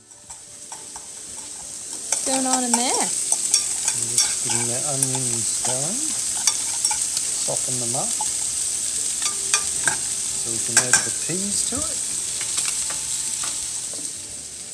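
Food sizzling in pans on an electric stove, a steady hiss, while a metal utensil stirs in a saucepan with scattered clinks and scrapes against the pan. The sizzle sets in about two seconds in and eases off near the end.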